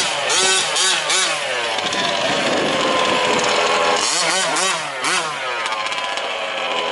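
Small two-stroke petrol engines of 1/5-scale RC trucks running, revved up and down in quick wavering blips twice, with a steadier engine note in between.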